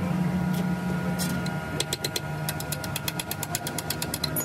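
A power tool's motor running steadily in metalworking, with a quick run of sharp ticks, about eight a second, in the second half.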